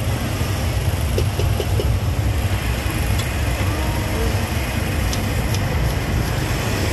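Steady low rumble of motorbike and car traffic and engines on the street, with a few faint taps about a second in.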